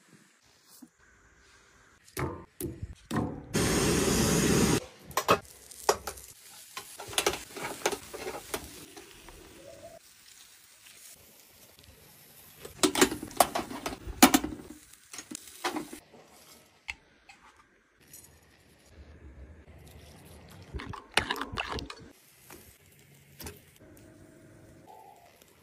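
A run of cooking sounds around a charcoal grill: metal skewers clinking and scraping, knocks on a wooden board, and a loud steady sizzle lasting about a second, a few seconds in.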